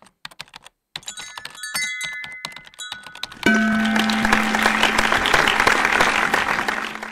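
Sound effects for an animated logo intro. At first there are scattered typing-like clicks with short chiming tones. About halfway in, a loud, dense crackling clatter starts over a steady low hum, and it cuts off near the end.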